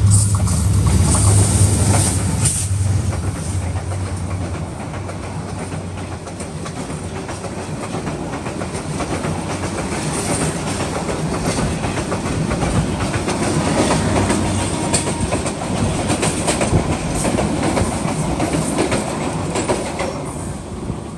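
A South Korean-built diesel-electric locomotive passes close by with a loud engine drone over the first few seconds. Its Indonesian-built passenger coaches follow, rolling past with a steady clickety-clack of wheels over the rail joints. The sound falls away near the end.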